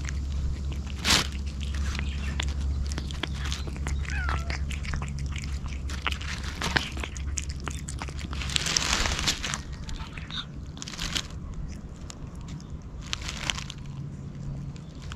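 A cat eating wet cat food from a metal bowl close up, with wet licking and chewing clicks. A low steady hum runs underneath and stops about two-thirds of the way through.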